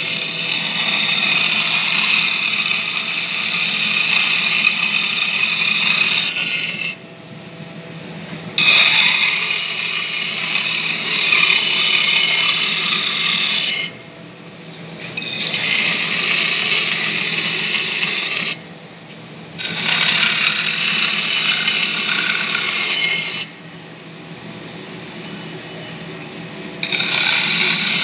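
Glass pieces ground on a spinning electroplated diamond disc: a loud, harsh, high-pitched grinding that breaks off four times for one to three seconds at a time, over the steady hum of the machine's motor.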